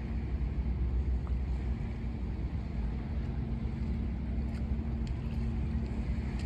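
Condor Voyager high-speed catamaran ferry's engines passing, a deep steady drone with a constant hum over it, and some wind on the microphone.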